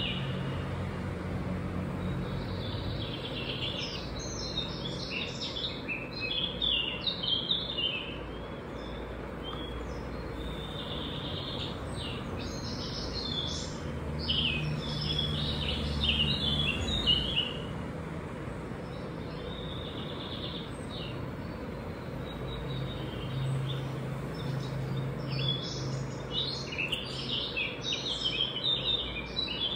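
Birds chirping in bursts of quick, high notes that come and go, over a low hum that swells and fades a few times.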